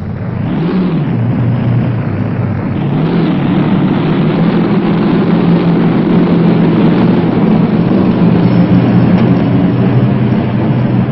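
Navy river patrol boat engines running at speed, a steady drone over rushing noise that builds over the first couple of seconds and then holds.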